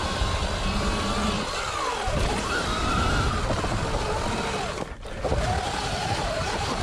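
Sur-Ron electric dirt bike's motor whining, its pitch rising and falling with the throttle, over rough wind and trail noise; the sound briefly dips about five seconds in.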